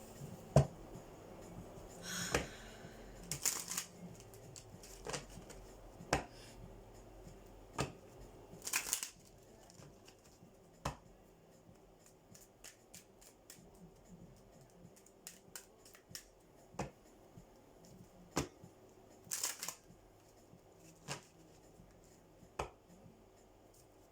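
Oracle cards being shuffled by hand: scattered sharp card snaps with a few short riffling rustles.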